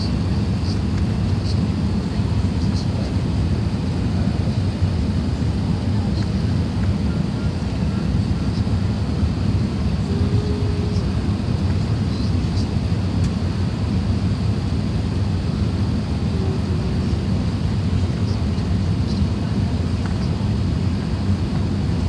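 Steady drone of engine and airflow noise inside an Airbus A380-800's passenger cabin, deep and unchanging, with a few faint ticks and rattles.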